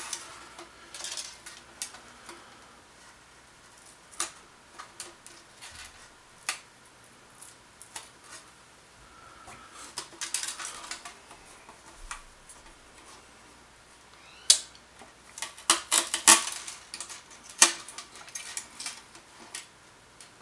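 Plastic clicks and clacks of an HP 24ES monitor's plastic housing and button-board parts being handled: scattered light clicks, then a busier run of sharp clacks over the last few seconds.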